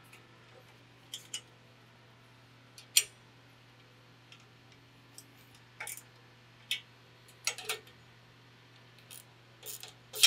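Scattered sharp metallic clicks and clinks of a screwdriver and wrench on the license plate bracket's bolts and nuts as they are tightened, about a dozen at irregular intervals, the loudest about three seconds in, over a faint low hum.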